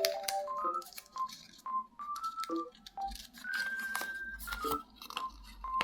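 Sheets of colour paper being folded and creased, with repeated crackling and rustling, over light background music of short melodic notes.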